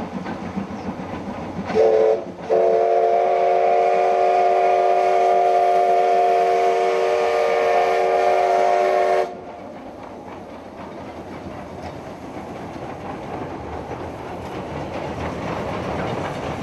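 Steam locomotive whistle: a short toot about two seconds in, then one long blast of several tones at once lasting about seven seconds that cuts off suddenly. After it, the steam train keeps running over a steel girder bridge, its clatter slowly growing louder.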